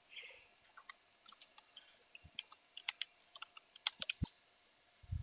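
Computer keyboard typing: a faint run of light, irregular keystrokes, with one sharper, louder keystroke about four seconds in.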